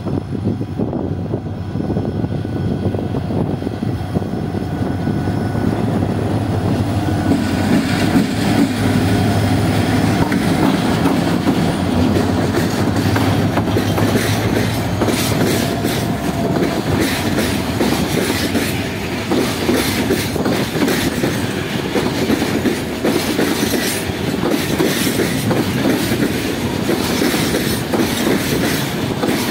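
Diesel-electric freight locomotive DE 33 011 approaching with its engine running and passing close by about halfway in. A long train of hopper wagons then rolls past with a steady clickety-clack of wheels over the rail joints.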